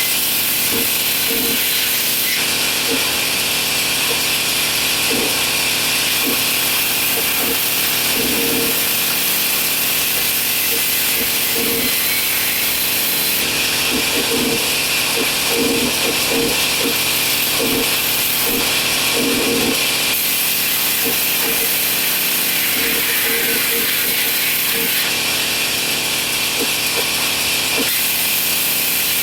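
A power tool cutting wood, a steady hissing noise that changes tone abruptly several times.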